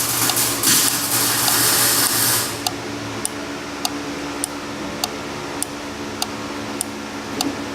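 Automotive fuel flow relay clicking on and off at a steady pace, about every 0.6 s, as a relay tester cycles it during its test. For the first two and a half seconds a loud hiss covers it, and a steady hum runs underneath.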